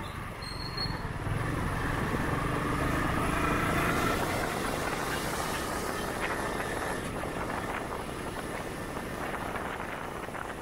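Honda Titan 125 motorcycle's single-cylinder four-stroke engine running as the bike rides along, with wind noise on the microphone. It gets louder about a second in and eases off again after about five seconds.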